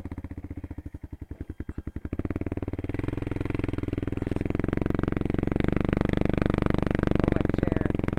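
ATV (four-wheeler) engine idling in slow, even pulses, then about two seconds in it revs up and runs steadily and louder as the quad gets under way.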